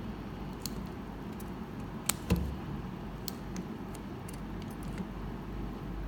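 Small metallic clicks and taps from a 1911 pistol's steel parts being handled and worked during disassembly, with two sharper clicks a little over two seconds in.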